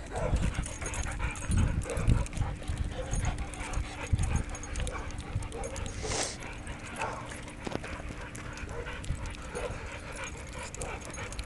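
Dogs whimpering and panting, with low thumps from the phone being jostled during the first four seconds and a short hiss about six seconds in.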